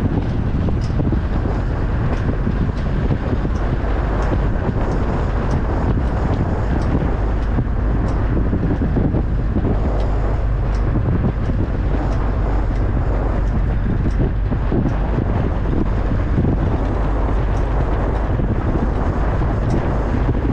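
A vehicle on the move, a steady low rumble with wind buffeting the microphone.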